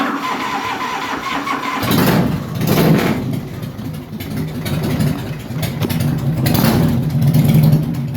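Motorcycle with open drag pipes being started: the starter cranks for about two seconds, the engine catches with a loud exhaust note, is revved up twice, and settles into a rough running warm-up.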